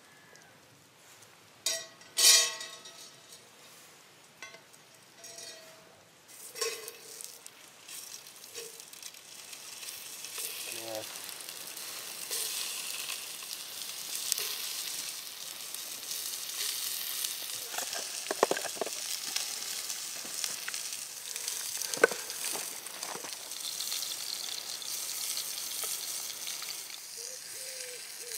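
Sausages frying in oil in a pan over a campfire: a steady sizzle that builds from about ten seconds in as they go into the hot pan. A loud ringing metallic clank about two seconds in, and a few sharp clinks later.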